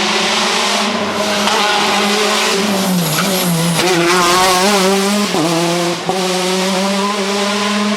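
Ford Fiesta RS WRC rally car's 1.6-litre turbocharged four-cylinder engine running hard at high revs, its pitch dipping briefly at gear changes about three seconds in and again around five and six seconds, with a loud rushing hiss over it.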